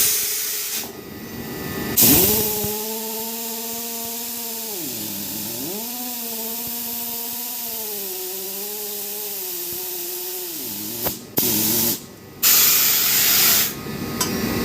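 Drilling rig machinery: loud bursts of air hiss at the start, about two seconds in and again near the end. Between them a steady pitched machine hum dips low in pitch for about a second, then rises back and holds.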